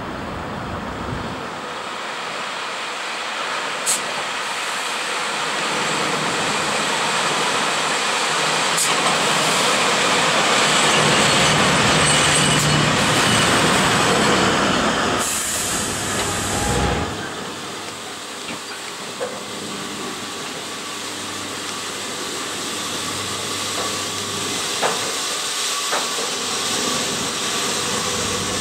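EP1M electric locomotive hauling a passenger train past at close range: a rising rumble and hiss of wheels on rail, loudest around the middle, with a few sharp clanks. A brief burst of hiss comes a little past halfway, then the train noise drops to a quieter steady hum from the locomotive as it draws slowly alongside.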